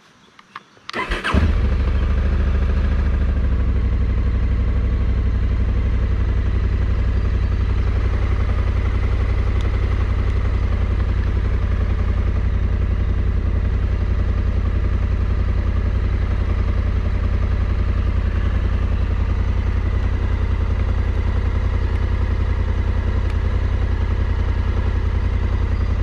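Adventure motorcycle engine cranked and started about a second in, then idling steadily.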